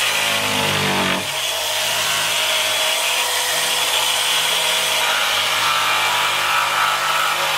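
Electric jigsaw cutting through a wooden board, the blade rasping steadily through the wood. Its motor pitch falls over about the first second, then it runs steadily.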